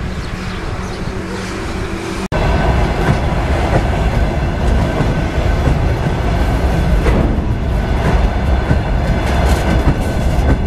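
Freight train of open gondola wagons passing close by: a loud, heavy rumble of wheels on rail with scattered clacks, starting abruptly about two seconds in after a fainter steady hum.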